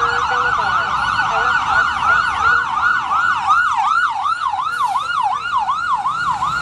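Fire engine's siren on the yelp setting, sweeping quickly up and down in pitch about three times a second, loud as the rig passes close by: a 2016 Spartan Gladiator / Smeal rescue engine responding with lights and siren.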